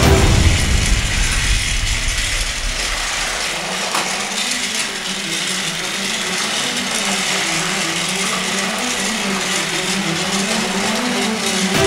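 Motorised TrackMaster toy trains running on plastic track. Their small electric motors and gears whir with a wavering hum, over a steady rattle of wheels and gearing.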